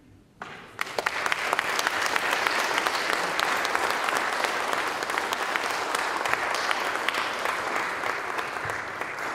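Audience applauding, the clapping starting about half a second in and beginning to die down near the end.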